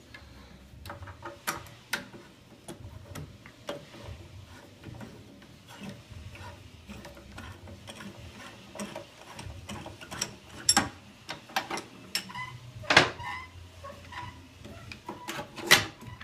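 Irregular clicks, knocks and rattles of an Aeron office chair's seat and tilt mechanism being handled and worked loose from the base, with a few sharper knocks now and then.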